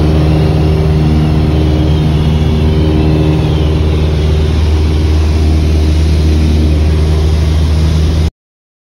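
A light aircraft's piston engine running steadily, heard loud from inside the cockpit. It cuts off suddenly near the end.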